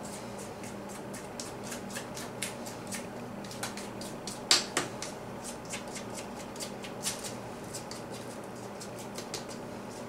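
Spatula scraping and tapping against a mixing bowl while thick batter is scraped out into a loaf pan: a string of small irregular ticks and scrapes, the sharpest about four and a half seconds in.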